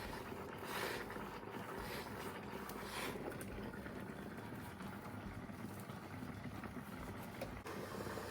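Steamer running, a steady hiss of steam being worked into new carpet to soften it so it forms to the floor.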